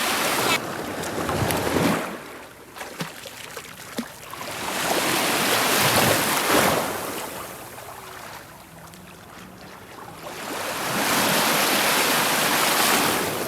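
Sea waves washing in, a wash of water noise that swells and fades three times, about every five seconds.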